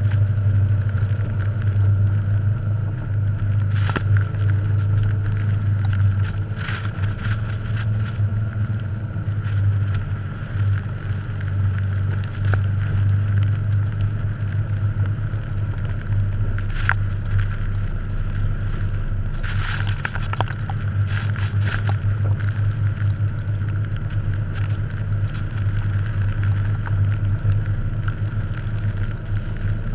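1989 Jeep Cherokee XJ's engine running with a steady low drone as the truck pushes through deep fresh snow. Snow crunches and scrapes under the big aired-down mud tyres, with scattered sharp knocks.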